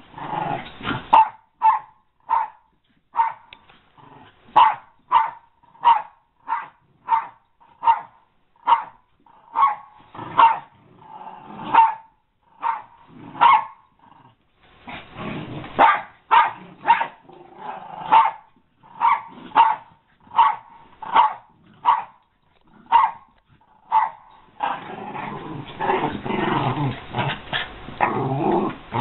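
American Eskimo dogs play-fighting: a dog barks sharply over and over, about two barks a second, with growls between. In the last few seconds it turns into continuous rough growling and snarling.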